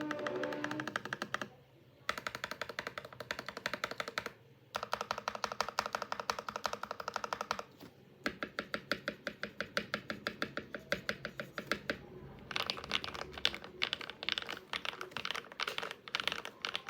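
Mechanical keyboard with lubed Akko Rose Red linear switches and a foam-modded case (case foam, PE foam, tempest tape) being typed on quickly. The keystrokes come in runs of a few seconds, broken by brief pauses.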